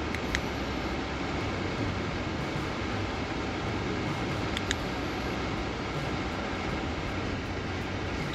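Steady rushing noise with a low hum in the vehicle cab, with two short sharp clicks about four seconds apart as buttons on a handheld remote are pressed.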